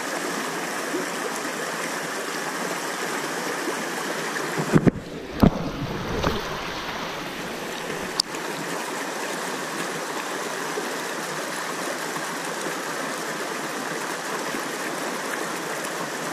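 Steady rush of river water running over shallow rapids. A few brief knocks come about five seconds in, and a single sharp click a little after eight seconds.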